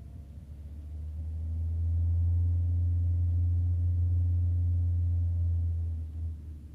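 Low steady drone of a moving car, heard from inside its cabin, swelling about a second in, holding for several seconds, then fading near the end.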